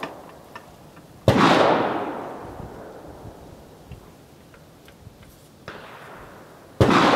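Gunshots from other rifles on the range: a loud shot about a second in and another near the end, each ringing out with a long echo over a second or two, and a fainter shot just before the second. A few faint clicks come in between.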